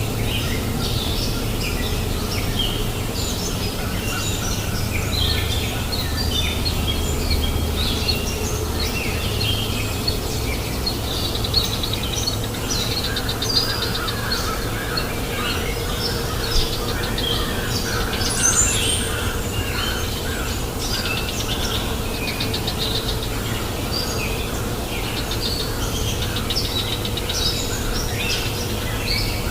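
Several songbirds chirping and calling continuously, with many short overlapping notes, over the steady murmur of a flowing river.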